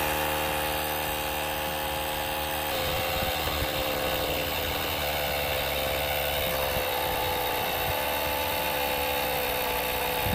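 Auxito portable jump starter's built-in electric air compressor running steadily as it inflates a low car tire toward its preset 33 PSI. Its tone changes about three seconds in.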